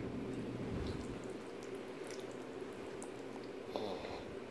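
Quiet room with a few faint clicks of a fork against a plate as pasta is twirled and lifted.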